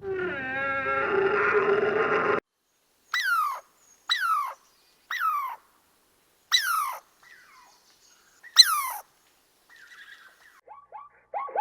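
Animal calls from a sound compilation: a held, steady call that cuts off sharply about two and a half seconds in. Then come five short cries, each falling steeply in pitch, about a second apart, and faint quick chirps near the end.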